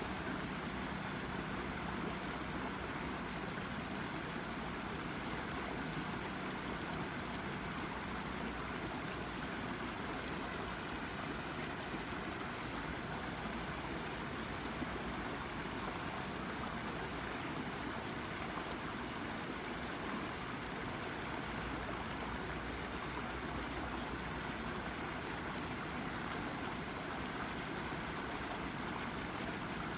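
Shallow brook babbling and trickling over a rock, a steady even rush of water.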